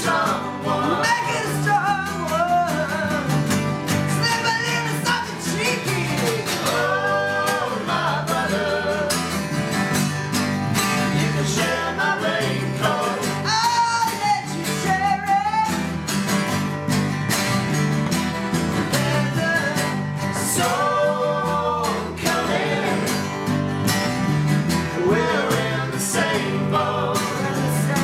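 Acoustic guitars strumming with a bass line under a male voice singing in phrases, played live by a small folk-rock band.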